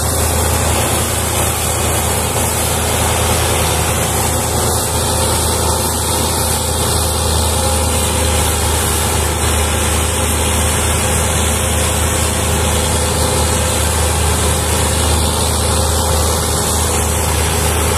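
Diesel tractor engine running with a steady low drone while hitched to a heavily loaded sugarcane trolley.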